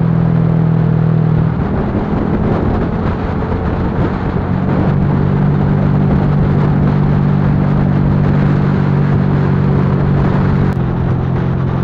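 Yamaha Lagenda 115 FI motorcycle's single-cylinder four-stroke engine running under way, over steady wind and road noise. The engine note breaks up about a second and a half in, settles a few seconds later, and changes again near the end.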